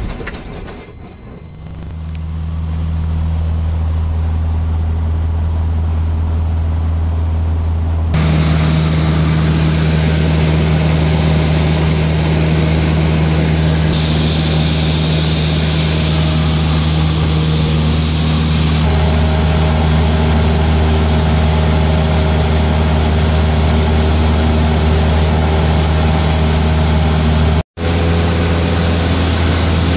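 Cessna Aerobat's four-cylinder piston engine and propeller droning, heard from inside the cabin. The engine builds up over the first two seconds just after starting, then runs steadily. The sound changes abruptly twice and drops out for an instant near the end.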